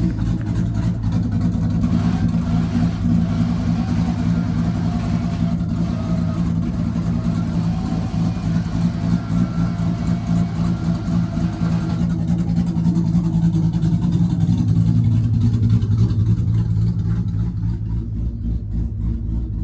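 Ford Mustang S197 drift car's engine running loudly and steadily, with its pitch shifting a little: somewhat higher through the middle and dropping lower near the end.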